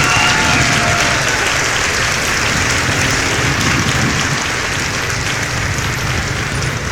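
Crowd applause, a steady dense clapping.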